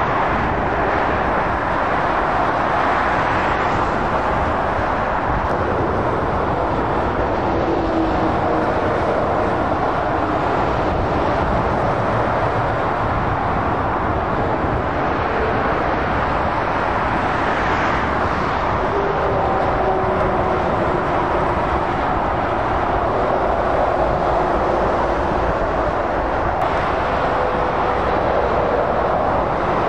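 Steady noise of busy motorway traffic, lorries and cars passing at speed, with faint whines coming and going.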